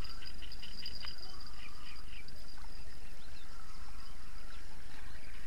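Outdoor waterside ambience: small birds chirping again and again over a steady high-pitched trill, with a low steady rumble underneath.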